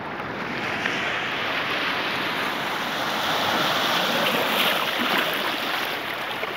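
Small sea waves washing in over rocks at the shoreline: a loud rushing hiss that swells to a peak about four seconds in, then eases off.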